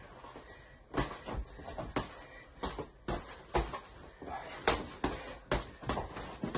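Boxing gloves thudding as punches land on a guarding sparring partner's gloves and headgear: about a dozen irregular blows, the sharpest about two-thirds of the way through.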